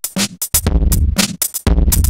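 Drum machine beat played through a Moogerfooger MF-102 ring modulator pedal while its knobs are turned.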